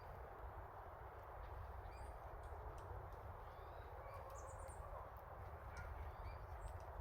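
Scattered short bird chirps over a steady background hiss and low rumble.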